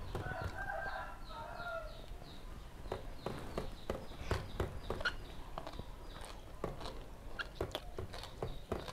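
Close-miked eating sounds: wet chewing, lip smacks and mouth clicks, irregular and many, from a mouthful of spicy papaya salad eaten by hand.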